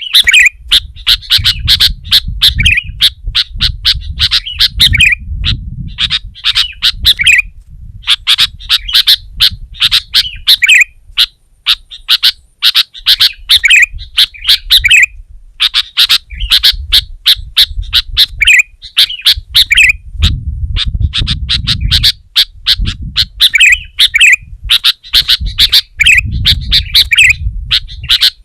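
Sooty-headed bulbul calling over and over: runs of quick, harsh notes, each run ending in a lower slurred note, repeated every second or two. A low rumble sits underneath much of the time.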